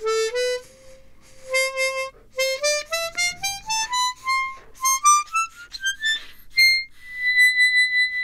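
Hohner ACE 48 12-hole chromatic harmonica played softly, climbing note by note up its range and ending on a high note held about a second and a half. The top note is the highest C, which the player finds a little hard to blow.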